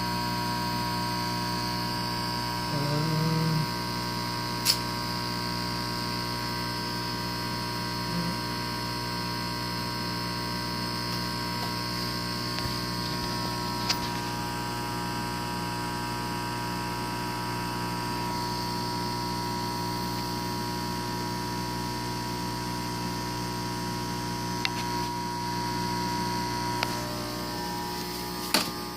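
Powered but stalled exhaust fan motor, humming steadily without turning: a failed motor whose windings are overheating and burning. A few sharp clicks are heard along the way.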